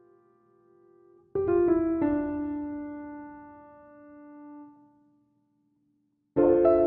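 Slow solo piano music. A few quick notes come about a second in, then one long note dies away, a short silence follows, and a new phrase begins near the end.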